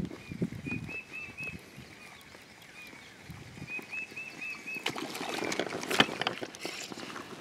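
Water lapping and sloshing around a float tube, with a songbird repeating short, quick chirps in runs over it. About five seconds in, a louder burst of scratchy, clicking noise starts, with one sharp click near the six-second mark.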